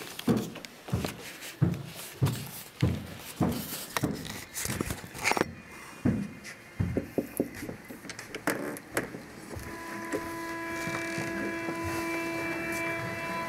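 Footsteps at about one and a half steps a second for the first five seconds, then scattered handling clicks. From about ten seconds in, music with a long held bowed-string note fades in and holds steady.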